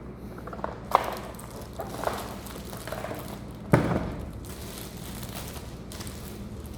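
Handling of a keyboard box and its packaging: a few light knocks and rustling, with one heavier thud about four seconds in.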